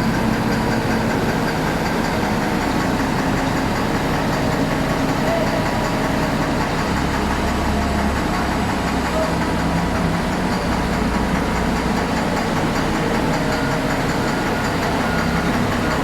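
Komatsu HD785-7 haul truck's diesel engine running steadily, its low rumble growing heavier for a few seconds in the middle. The engine is knocking and down on power, a fault the mechanics put down to a blown piston.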